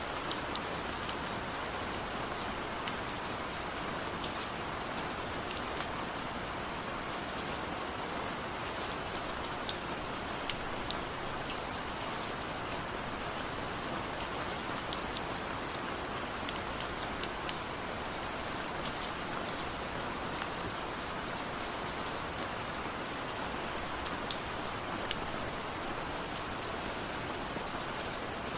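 Steady rain falling: an even hiss with many scattered sharper drop ticks.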